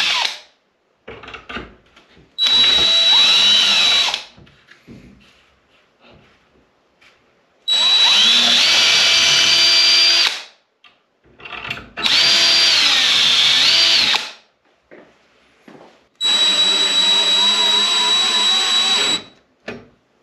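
Cordless DeWalt 20V Max drill boring through a cabinet-hardware jig's guide into a wooden cabinet door. It runs in four separate spells of two to three seconds, its whine shifting in pitch, with light knocks and clicks of handling in between.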